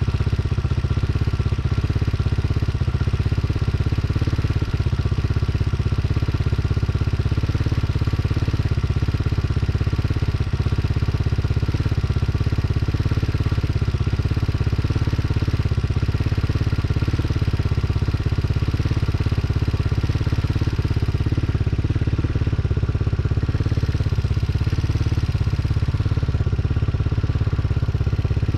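Tao Tao TBR7 motorcycle engine idling steadily, with no revving.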